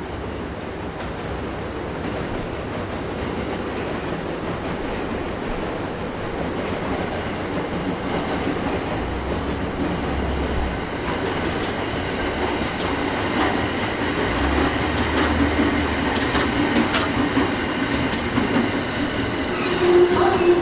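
JR East 209 series electric train rolling past, its wheels clicking over rail joints and points as the running noise slowly builds.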